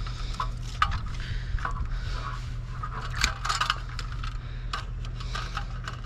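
Wires being pulled and cut out of a sheet-metal electrical box: irregular scraping, small metallic clinks and clicks from the wires, cutters and metal panel, over a steady low hum.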